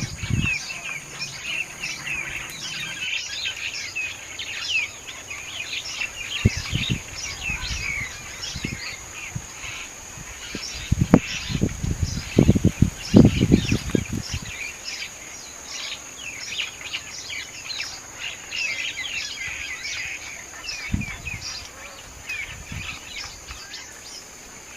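Many small birds chirping continuously over a steady high-pitched insect drone. A cluster of low thuds about halfway through is the loudest sound, with a few more scattered elsewhere.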